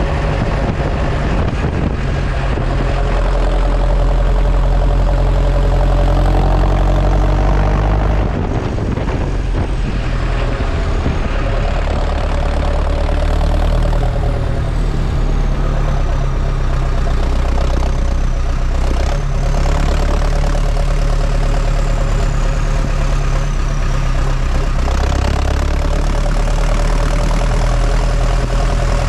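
New Holland T5050 tractor's four-cylinder diesel engine running steadily as the tractor drives along a road, heard close to the exhaust stack, with a brief dip in the engine sound about eight seconds in.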